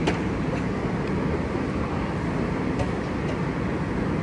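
Steady indoor crowd din of a busy shopping mall, many distant voices blended together, with a sharp click just after the start and two faint clicks near the end.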